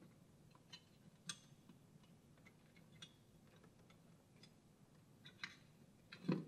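Faint, scattered ticks of telephone wires being pressed by hand into the metal clips of a 66 punch-down block, with a louder knock near the end.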